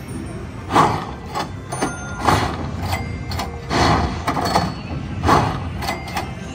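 Slot machines on a casino floor: short electronic tones and chimes sounding over a busy, irregular background noise.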